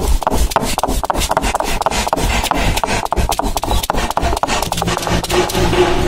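Stone roller of an ammi, a stone grinding slab, rolling and crushing whole small onions: stone scraping on stone with a quick run of crackling, gritty clicks. Near the end, background music comes in under the grinding.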